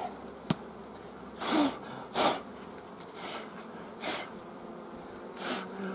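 About five short, breathy puffs of air, roughly a second apart, over a faint hum of honeybees around an open hive.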